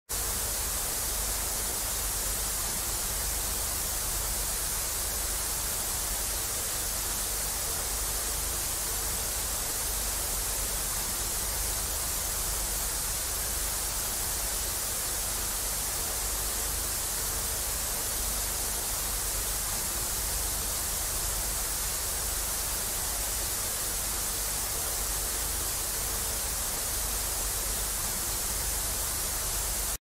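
Off-air television static: a steady, even hiss of white noise, brightest in the high end.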